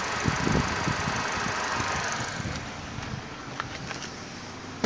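Holden Captiva's 2.4-litre Ecotec four-cylinder petrol engine idling, heard close up in the open engine bay, with a few low handling bumps about half a second in. Past two seconds the engine sound eases a little as the microphone moves away toward the door, and a couple of light clicks come near the end.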